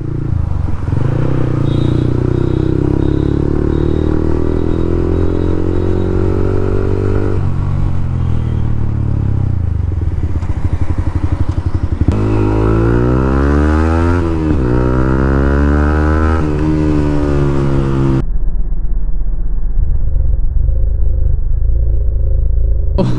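Yamaha MT-15 motorcycle engine under way, climbing steadily in pitch for several seconds, dropping at a gear change, then revving up and down several times. It sounds muffled for the last few seconds.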